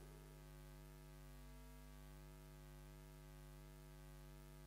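Near silence with a faint, steady electrical hum from the public-address sound system.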